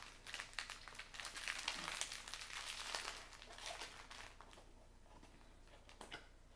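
Faint crinkling of plastic packaging being handled: a run of irregular small crackles that thins out after about four and a half seconds, with a couple of single crackles near the end.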